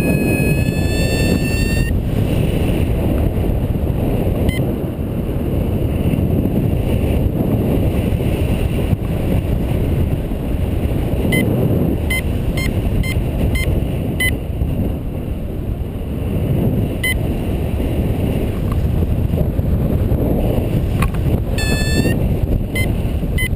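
Airstream rushing over the microphone of a paraglider in flight: a loud, steady rumble. Runs of short high electronic beeps begin about halfway through, and a brief rising electronic tone comes near the end.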